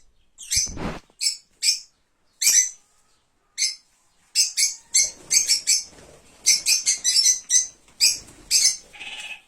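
Kakariki parakeets chattering: short, sharp, high chirps, some single and some in quick runs of several, with a brief low rumble about half a second in.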